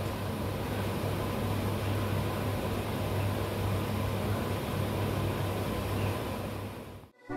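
Steady background hiss with a low hum underneath, fading out suddenly near the end.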